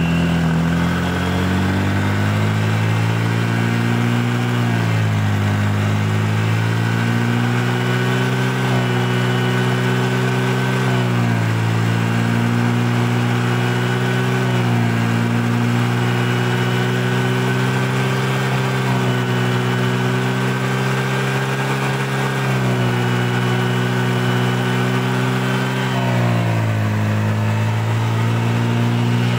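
Honda PCX scooter's single-cylinder four-stroke engine held at raised revs while a carbon-cleaning fluid is fed into its open air intake. The engine speed sags and recovers four times, around five, eleven, twenty-two and twenty-six seconds in.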